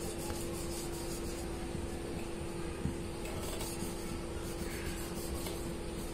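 Faint strokes of a marker pen writing on a whiteboard, over a steady hum and hiss.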